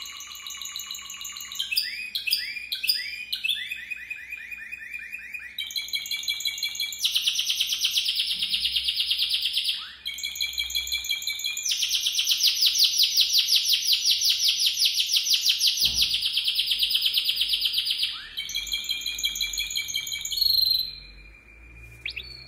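Timbrado Español canary singing a long, continuous song of changing phrases: rapid rolled trills, quick gliding notes and long rolling trills, the longest held for about six seconds. The song breaks off about a second before the end.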